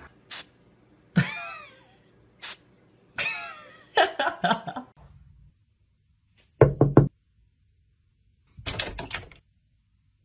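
Knocking: three quick knocks, then a short flurry of knocks about two seconds later. In the first half, several short sounds with pitch sliding up and down.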